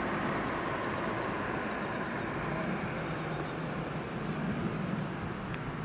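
Insects, grasshoppers or crickets, chirping in short rapid buzzing bursts that repeat about once or twice a second, over a steady low background rumble.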